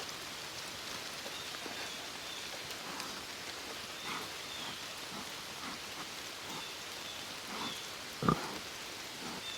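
Steady rain, with a pig faintly snuffling as it forages for acorns. A single short thump comes about eight seconds in.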